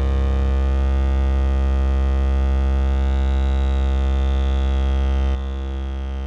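Behringer TD-3-MO bass synthesizer holding one long low note rich in harmonics, its upper overtones slowly swelling and fading as the filter moves. About five seconds in it changes to a different, quieter note.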